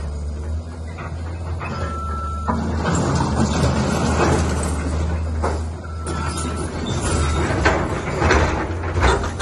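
Caterpillar tracked excavator's diesel engine running steadily while its bucket breaks into concrete masonry, with crunching debris and several knocks that grow louder near the end. A short high whine comes twice.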